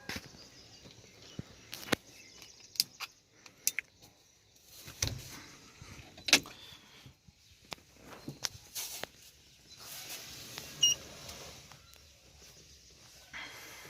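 Scattered clicks and knocks, then a steady whirr lasting about two seconds near the end: an electric power window motor in an Ashok Leyland Dost pickup's door running the glass.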